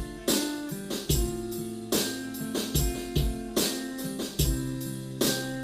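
Instrumental opening of a worship song: a steady drum beat with a hit about every half second under held chords, with no singing.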